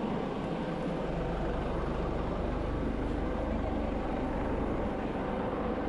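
MH-65 Dolphin helicopter running: a steady rotor and turbine din with a fast low beat from the blades, growing heavier in the low end about a second in.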